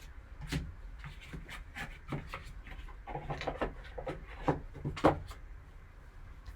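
Trading card and its packaging handled by hand: a run of light rubs, taps and clicks, the sharpest about five seconds in.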